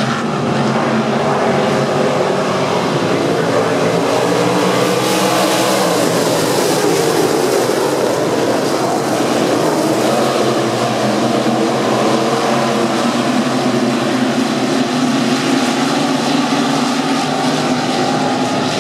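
A pack of IMCA stock cars' V8 engines running at race speed, a loud steady drone that swells and shifts in pitch as the cars pass. It grows loudest and harshest about five to eight seconds in, as the pack sweeps by close.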